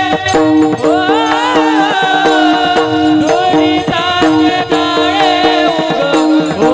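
Marathi kirtan music: steady held harmonium-like tones under a melody line that bends and slides in pitch, with hand percussion keeping the beat.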